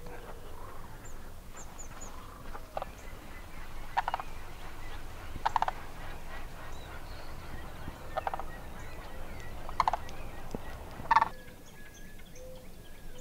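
Sandhill cranes calling: about six loud, rolling, rattling calls, spaced every second or two. Faint high chirps of small birds sound in the first couple of seconds.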